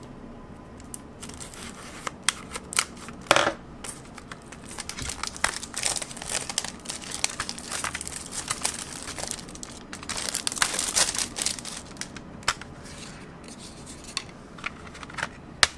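Plastic shrink-wrap on a CD jewel case being cut with a craft knife and peeled off, crinkling and tearing, with irregular sharp clicks and taps from the plastic case being handled.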